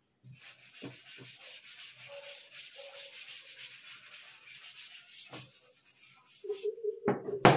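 Chalk being wiped off a blackboard, an eraser rubbed across the board in repeated strokes for about five seconds. Near the end comes a sharp tap and a steady low tone.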